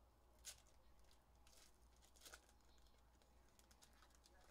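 Near silence, broken by a few faint clicks and rustles of trading-card packs being handled, the sharpest about half a second in and a cluster of small ticks near the end.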